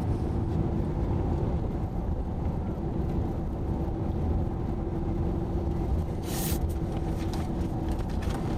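Road noise inside a moving car: a steady low rumble of tyres and engine with a faint steady hum, and a brief hiss about six seconds in.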